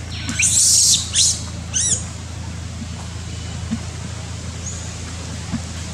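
A monkey giving a few short, high-pitched squeaks in the first two seconds, the last ones rising and falling in pitch, over a steady low hum.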